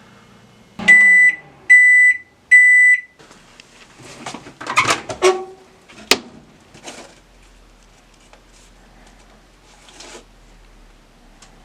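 Microwave oven beeping three times at the end of its cycle, each a steady high beep about half a second long. A few seconds later come clattering handling noises and one sharp click.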